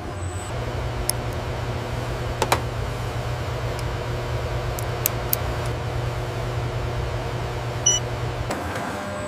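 Steady low machine hum with a few sharp clicks scattered through it and a short electronic beep about eight seconds in.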